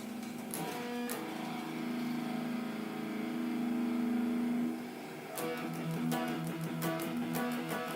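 Electric guitar (Ibanez RG 370) played through the JamStack's small built-in speaker, with the phone app's virtual amp on maximum gain and reverb. Notes are struck and left ringing for about four seconds, then quicker picked notes follow.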